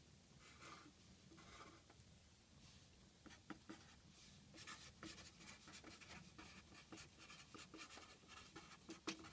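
Faint marker strokes on a small whiteboard as a line of text is written: a string of short scratches, sparse at first and busier from about three seconds in.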